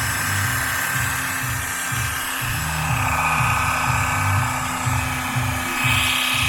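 Brushless drywall sander's motor running with a high whine that comes in partway through and gets stronger near the end, over background music with a steady bass beat.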